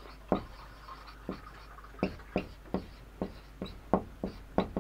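Marker pen writing on a whiteboard: a string of short, quick strokes and taps, about two a second, as the letters are drawn.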